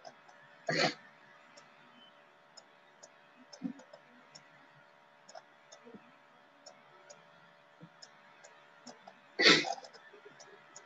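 A person makes two short throat noises, the first about a second in and a louder one near the end. Between them are faint scattered ticks and a low steady hum.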